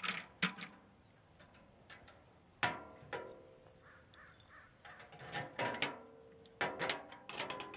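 Plastic liner and steel door of a locking mailbox being handled: a series of sharp clacks and metal knocks, several with a brief ring.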